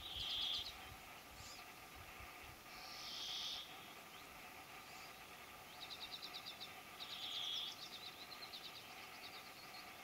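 Small songbirds singing: rapid high trills of quick notes, some falling in pitch, and short buzzy phrases that come back every few seconds.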